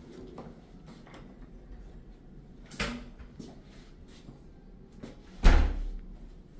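A door being handled: a sharp knock about three seconds in, then a heavier thud with a low boom a few seconds later, the loudest sound here.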